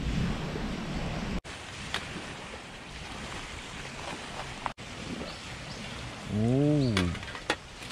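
Steady hiss of waves and wind on the shore, with a few light clicks of chopsticks and utensils against a metal cooking pot and mess tin. Near the end comes a man's short hum that rises and falls in pitch.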